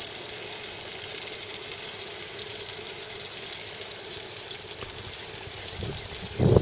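A steady, even hiss, with a short loud knock near the end.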